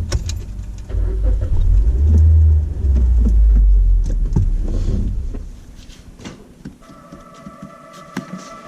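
Low rumble of a car, heard from inside the cabin, loud for a few seconds and then dying down. In the last couple of seconds, steady background music tones fade in.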